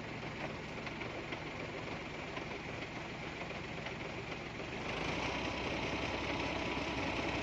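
A truck's diesel engine running steadily, becoming louder and deeper about five seconds in.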